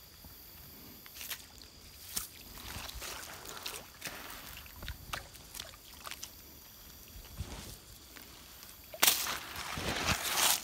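Cast net being hauled through shallow creek water, with quiet small splashes and rustles. Near the end comes a much louder rush of water as the net is lifted out and drains.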